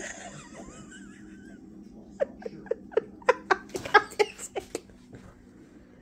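A person laughing in a quick run of short bursts for a couple of seconds, a little after a brief high, wavering chirp at the start.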